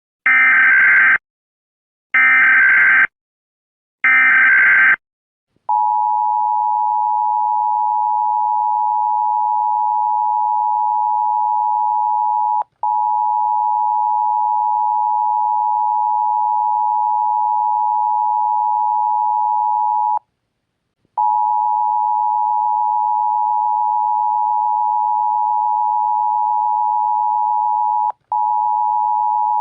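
Emergency Alert System tones: three one-second bursts of the SAME digital header data, about two seconds apart, then the steady two-tone EAS attention signal (853 and 960 Hz). The attention tone drops out very briefly twice and pauses for about a second once.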